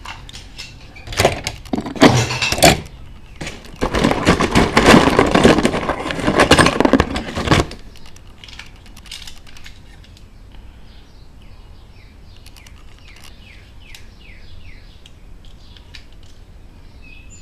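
Metal die-cast toy cars clattering and clinking together as a hand rummages through a box of them, loud for several seconds and then stopping. Birds chirp faintly in the later half.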